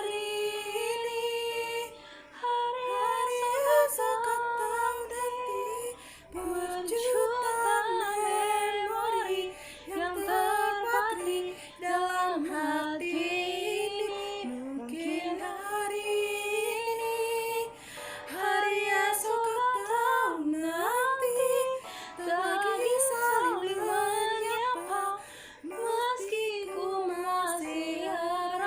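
Female voice singing a slow melody in phrases a few seconds long, with brief breaks between them.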